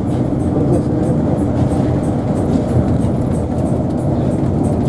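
Steady road and engine noise of a moving vehicle, with a faint steady hum running through it.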